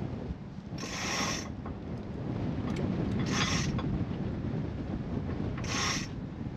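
Cockpit winch hoisting the mainsail on a Leopard 45 catamaran, the main halyard running over the drum and through its blocks with a steady mechanical grind. Three short rasping rushes of line come about 1, 3.5 and 6 seconds in, with wind on the microphone underneath.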